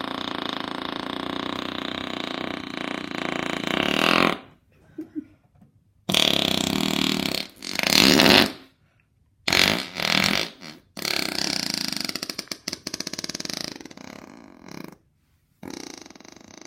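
Imitation fart noises made by a person: one long buzzing fart sound lasting about four seconds, then a string of shorter ones with brief pauses between them, one of them a longer fluttering one.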